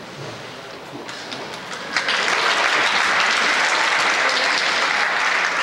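Crowd applauding, building over the first two seconds and then loud and sustained.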